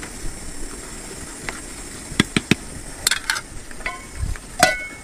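Metal cookware clinking at a wood cooking fire: a few sharp clicks and knocks, then two short metallic rings near the end, over a steady hiss.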